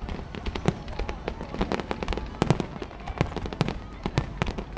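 Fireworks going off: a rapid, irregular run of sharp pops and cracks, several a second.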